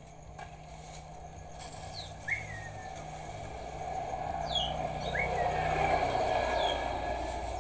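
Young chicks giving scattered short, high peeps with quick pitch slides, about half a dozen in all, over a steady background hiss that swells midway.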